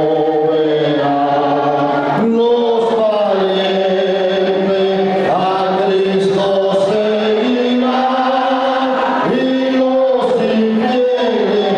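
Voices singing in long, held notes that shift pitch every second or two, with music.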